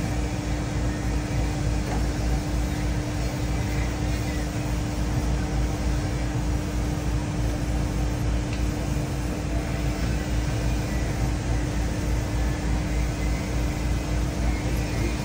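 A steady machine drone: a constant hum over an even, fan-like rushing noise, unchanging throughout.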